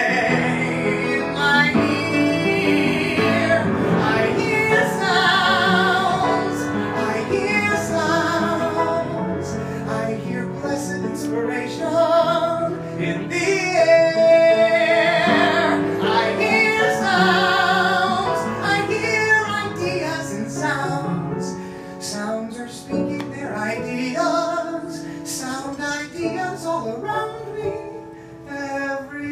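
A man singing a show tune in a high voice, with held, wavering notes over piano accompaniment. The loudest long high note comes about fourteen seconds in, and the singing grows softer near the end.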